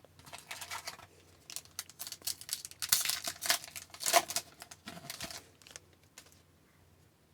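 A foil hockey card pack being opened and its cards handled: the wrapper crinkles and tears and the cards slide and flick, a run of short crackles and clicks for about six seconds.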